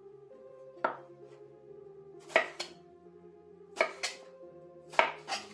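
Chef's knife cutting zucchini into sticks, its blade knocking sharply on a wooden end-grain cutting board about seven times at uneven intervals, some strokes in quick pairs.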